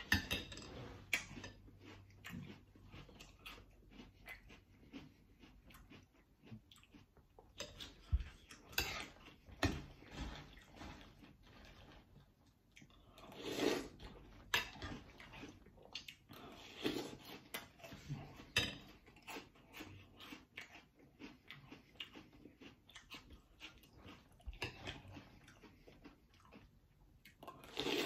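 A person eating Cap'n Crunch's Crunch Berries cereal in milk: crunchy chewing mixed with a metal spoon scraping and clicking in a glass bowl, in many short irregular sounds.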